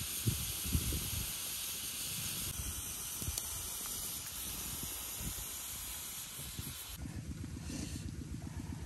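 Fish cooking inside a green bamboo tube on a wood fire, hissing steadily as steam and froth escape from the open end. The hiss cuts off suddenly about seven seconds in, leaving a low rough noise.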